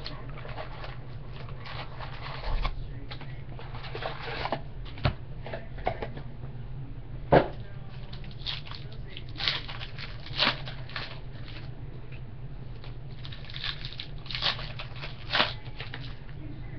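Scattered clicks, rustles and crinkles of trading card packs and cards being handled and opened, over a steady low hum.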